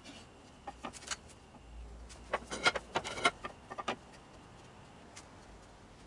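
Wood boards and hand tools being handled on a wooden workbench: a few light knocks, then a quick run of sharp clicks and knocks as pieces are set down and shifted into place, then quiet.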